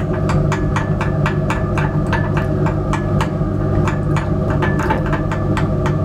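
Metal spatula tapping and scraping against the inside of a glass beaker as it stirs and breaks up a white crystalline powder, in quick repeated clicks about five a second. Under it runs a steady low hum, the fume hood's extraction fan.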